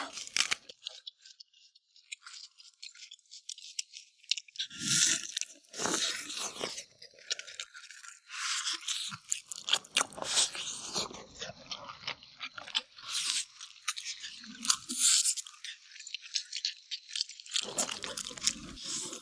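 Close-up eating sounds from a clip-on mic: gnawing and chewing meat off a chunk of spicy braised beef backbone, with irregular crunching in uneven bursts.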